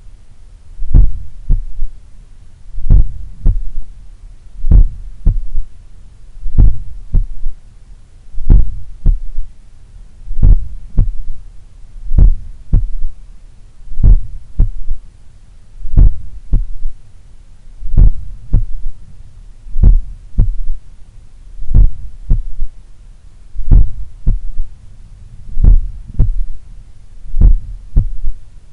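Slow, powerful human heartbeat heard through a stethoscope at the cardiac apex, about one beat every two seconds, each beat a cluster of low thuds. A third heart sound (S3) follows the second sound, which the recordist puts down to blood recoil or a slightly larger, supple left ventricle.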